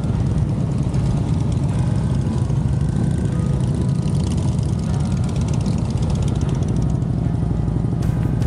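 Motorcycle engine running at low speed in slow traffic, a steady low, fast-pulsing rumble with wind and road noise over it.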